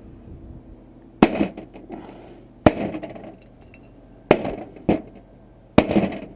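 Hammer blows on a brass water-heater valve, five sharp metallic strikes about a second apart, each with a short ringing rattle, knocking out a pressed-in part.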